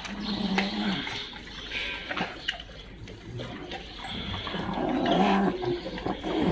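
A group of dogs moving about on a hard tiled floor, with two short low-pitched dog vocal sounds, one near the start and one about five seconds in, each lasting under a second.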